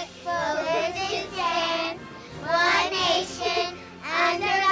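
A high voice singing in short phrases with brief pauses between them, with some musical accompaniment.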